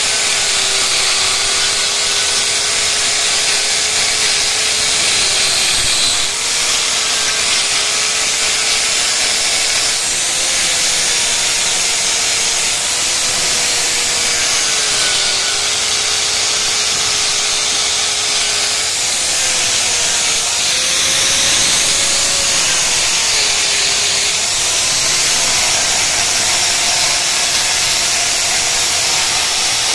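Electric angle grinder with an abrasive disc sanding the steel muffler of a Yamaha Mio Sporty exhaust pipe. The steady grinding hiss runs throughout, and the motor's whine wavers up and down in pitch.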